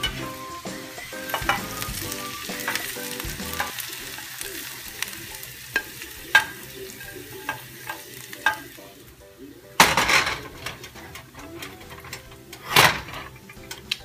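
Tongs clicking and scraping against stainless steel pans as a sautéed onion, cherry and almond mixture is scraped from a skillet and stirred into a pot of black rice, over a light sizzle that fades out about halfway through. Two louder scrapes come near the end.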